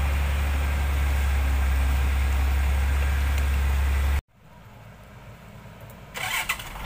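Hyundai log truck's engine running steadily with a deep, even drone, which cuts off suddenly about four seconds in and leaves a much quieter background. A short higher-pitched sound follows near the end.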